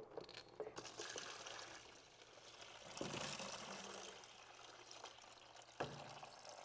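Engine coolant pouring from a pulled lower radiator hose and the water pump outlet of a Suzuki GSX-R1000 into a plastic drain pan, a faint splashing trickle as the cooling system drains. A few faint clicks near the start and one near the end.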